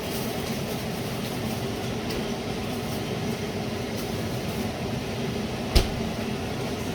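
Steady machine hum with a light hiss, like a kitchen fan or appliance running, with a few faint clicks and one sharp knock a little under six seconds in.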